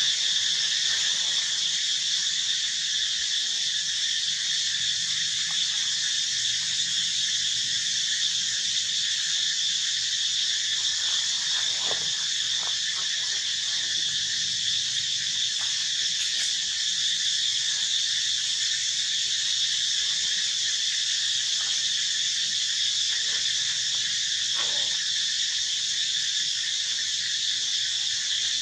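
Steady high-pitched drone of an insect chorus, unbroken and even in level throughout.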